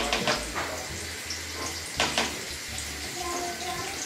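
Watery ground spice paste sizzling and spattering in hot oil in a wok, a steady hiss like running water, with a few sharp knocks near the start and about two seconds in.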